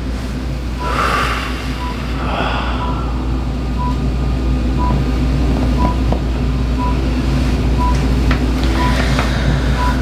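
Steady low electric machine hum with a short high beep repeating about once a second, growing slowly louder. Long breaths sound about one and two and a half seconds in.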